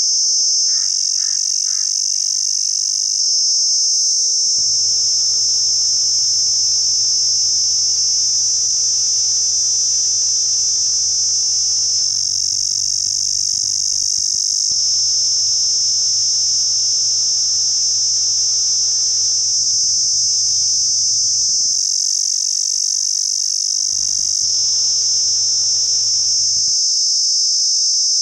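Cicada buzzing: one loud, continuous, high-pitched drone that holds steady without a break.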